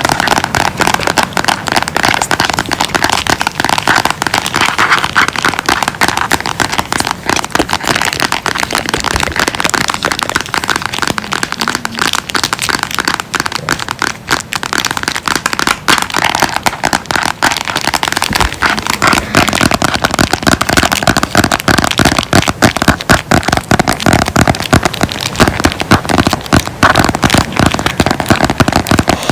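Close-miked ASMR trigger sounds: a dense, continuous run of rapid crackling clicks. It grows busier and louder about two-thirds of the way through.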